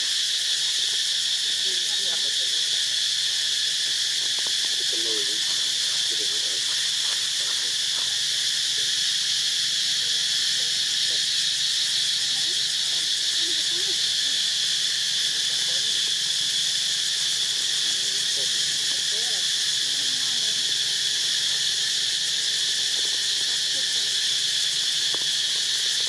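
Steady high-pitched droning of insects, an even buzz with no breaks. Faint, short wavering calls come and go beneath it a few times.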